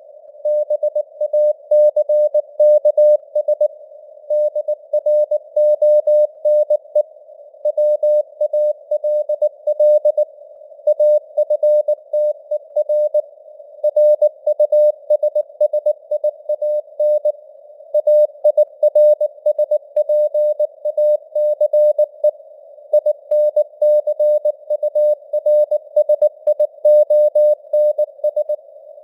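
Morse code at 19 words per minute: a single mid-pitched tone keyed on and off in dots and dashes, spelling out news headlines, over a narrow band of simulated radio hiss, with the signal strength drifting up and down as simulated fading (QSB).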